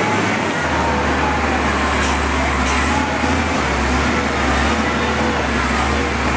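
Diesel engine of a LOVOL front wheel loader running steadily as the machine drives, with a constant low drone.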